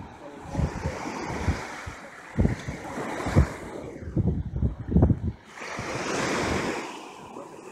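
Surf washing onto a beach, with wind buffeting the microphone in irregular low thumps.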